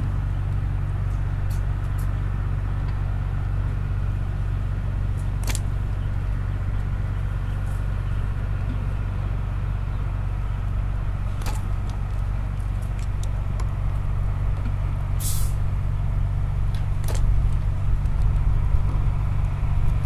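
Steady low hum throughout, with a short sharp snap about every six seconds as a bait catapult is loaded and fired to put feed into the swim.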